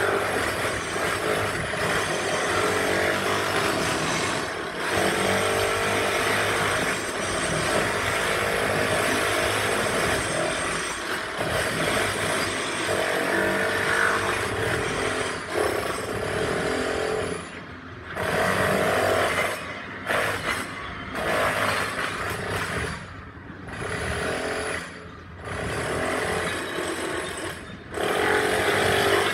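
Handheld power tool breaking up paving tiles, running steadily under load. In the last third it stops and restarts several times in short bursts.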